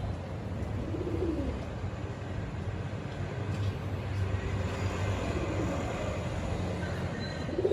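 Pigeons cooing, a few short rising-and-falling coos a couple of seconds apart, over a steady low rumble.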